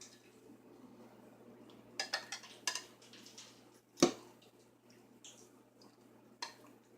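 Serving utensil clinking against a pot and mug while chicken and dumplings are dished up: a few light clinks about two seconds in, one louder knock about four seconds in, and another clink near the end.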